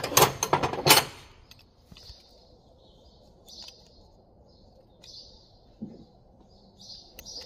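Steel spanners clattering and clinking against each other and the metal toolbox for about the first second. Then faint, short bird chirps repeat every second or so.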